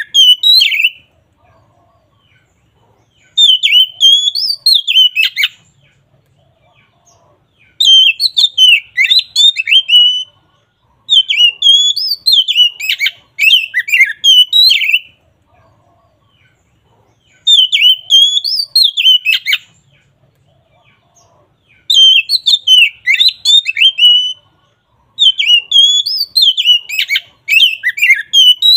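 Oriental magpie-robin (kacer) singing its loud, full 'ngeplong' song: phrases of rapid whistled notes, each about two to four seconds long, repeated about six times with short pauses between.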